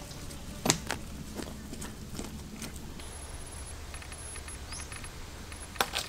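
Hand-plucking of wet feathers from a scalded chicken: scattered small clicks and crackles as the feathers are pulled and handled, with a sharper click about a second in and another near the end.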